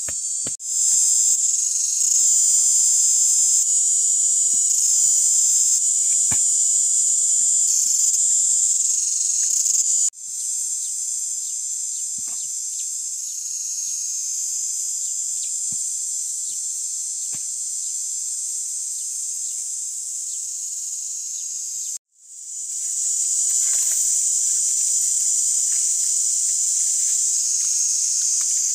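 Loud, steady high-pitched shrill of an insect chorus, briefly breaking off about ten seconds in and again a little after twenty seconds. A few faint taps sound underneath.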